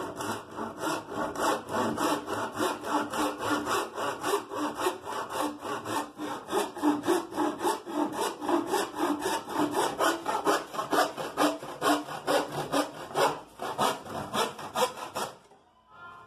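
Handsaw cutting through a plywood panel in fast, even strokes, about three to four a second, stopping about a second before the end.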